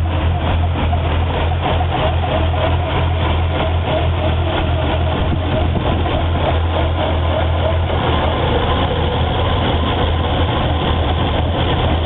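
Nissan RB25DE NEO 2.5-litre straight-six idling steadily at a constant speed, with a misfire that the owner links to a change of spark plugs to NGK BKR5EIX iridiums.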